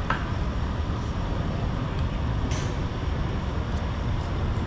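Steady rumble of a heavy engine, with a sharp knock near the start and another about two and a half seconds in.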